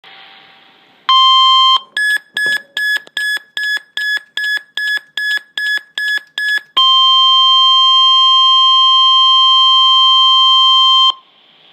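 Emergency Alert System alert tones. There is one short beep, then a quick run of about thirteen short high beeps, roughly three a second, then a long steady attention tone of about four seconds that cuts off suddenly. They signal the start of a severe thunderstorm warning broadcast.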